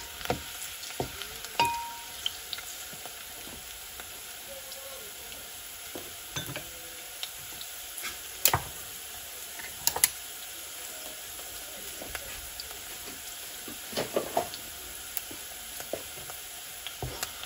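Sliced onion frying in a little oil in a pot, a steady faint sizzle, with a wooden spatula stirring at the start and a few sharp knocks scattered through.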